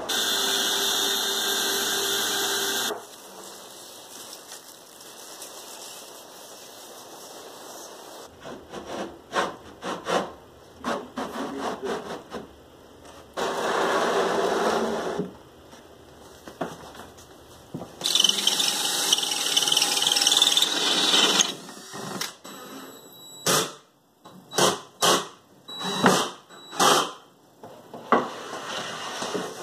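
Workshop power tools running in separate stretches: a steady loud run in the first few seconds, scattered short bursts through the middle, a longer loud run about two-thirds through, then a quick string of short bursts near the end.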